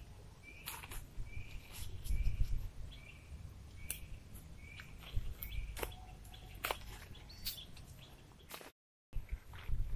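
A bird repeating a short chirp about twice a second, over scattered sharp clicks and rustles from a tarp and tent pole being handled. The sound drops out completely for a moment near the end.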